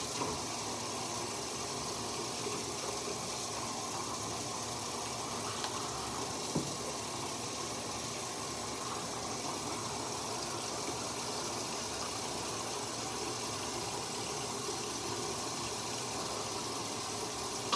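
Steady, even rushing noise with no rhythm.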